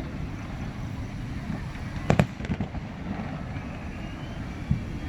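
Fireworks bursting: a quick pair of sharp bangs about two seconds in, then a few fainter pops, over a steady low background rumble.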